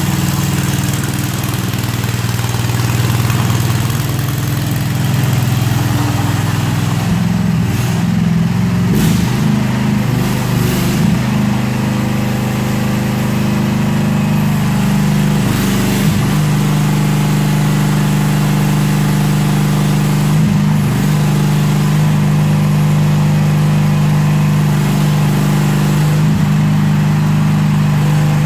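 Mini excavator's small engine running steadily while the machine swivels and tracks, its note shifting briefly a few times as the hydraulics take load.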